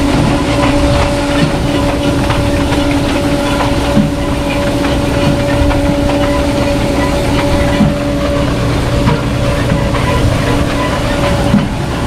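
Grimme Ventor 4150 self-propelled four-row potato harvester running under load while digging. It gives a steady rumble with a constant whine, continuous rattling and a few louder knocks.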